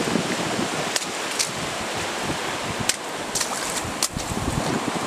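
Steady rush of heavy rain and running stream water, with a few sharp ticks scattered through it.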